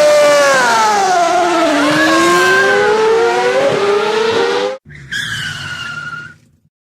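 Race car sound effect: engine whine and tyre squeal gliding down and up in pitch, cut off abruptly about five seconds in. A shorter, steadier high tone follows for about a second and a half, then it falls silent.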